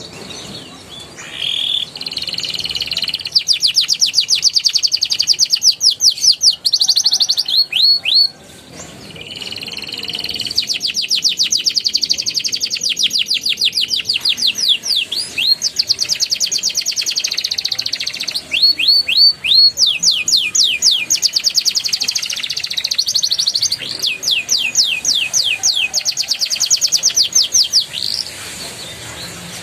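Young domestic canary singing rapid trills and rolls: phrases of a few seconds each made of fast, evenly repeated high notes, separated by short pauses.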